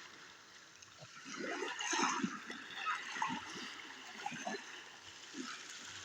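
Sea water splashing and gurgling in small, irregular splashes.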